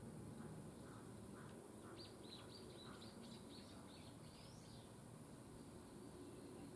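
Small songbirds calling faintly: a few short, lower chirps, then a quick run of about ten high, downward-sliding notes, over a faint steady background hiss.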